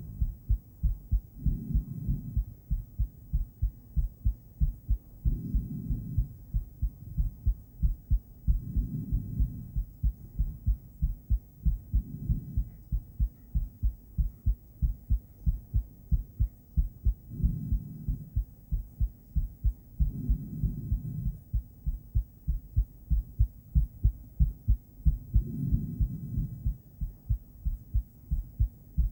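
Woman's heartbeat picked up by a handheld ultrasonic Doppler device: a steady, even run of low beats. A louder whooshing swell rises over the beats every few seconds.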